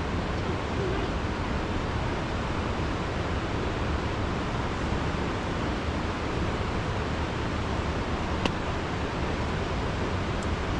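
Steady, unbroken rushing of a flooded river, with a single sharp click about eight and a half seconds in.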